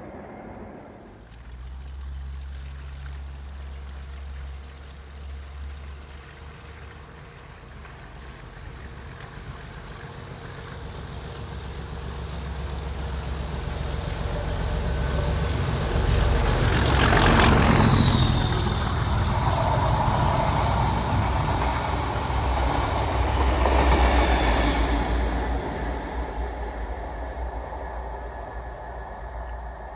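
Class 37 diesel locomotive working hard as it hauls a passenger train past. Its English Electric V12 engine hum builds steadily, is loudest as the locomotive passes about two-thirds of the way in, and a second surge with a held higher tone follows a few seconds later before the train fades away.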